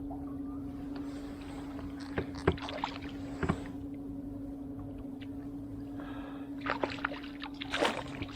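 Sharp knocks and clatter of fishing gear against a kayak as a hooked kokanee is brought in and landed: a few single knocks, then a busier burst of clatter near the end, over a steady low hum.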